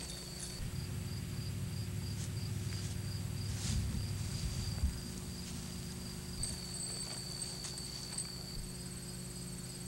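Outdoor ambience: a steady high-pitched whine with a fainter, higher tone that pulses near the end, over a low hum, with a few faint knocks scattered through.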